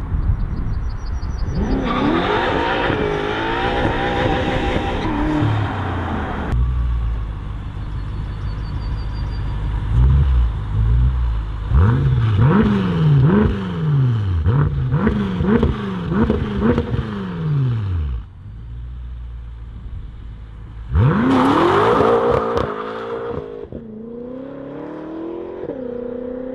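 BMW M5 F10's 4.4-litre twin-turbo V8 exhaust. It starts with a hard acceleration, the revs climbing again and again through the gears, then gives a string of about ten quick rev blips, each rising and falling. About three-quarters of the way through it pulls away hard once more, with the revs climbing.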